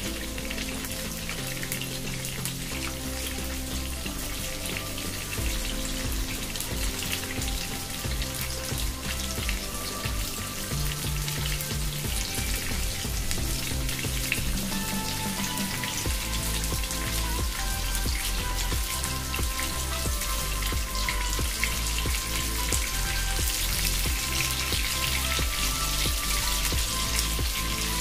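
Batter-coated prawns sizzling and crackling in hot oil in a frying pan, growing louder in the last few seconds, over background music.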